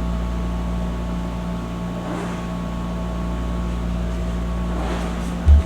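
Steady low mechanical hum with a few constant tones in it, like a running machine, with a brief low bump near the end.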